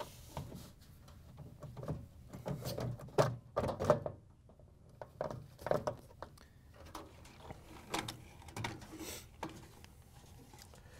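Plastic control board housing being slid forward, lifted and pulled out of a washer cabinet: irregular knocks, clicks and scrapes of plastic against the cabinet, loudest about three to four seconds in.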